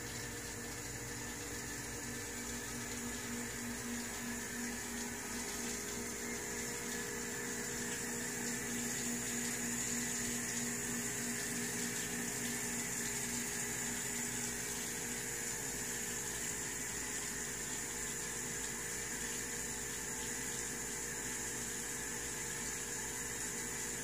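Terrarium waterfall running, water trickling and splashing steadily, with a steady hum underneath.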